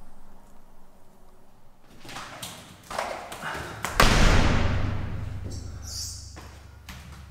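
A few short knocks, then one loud booming thud about four seconds in that fades slowly over two to three seconds, leaving a low rumble and hiss.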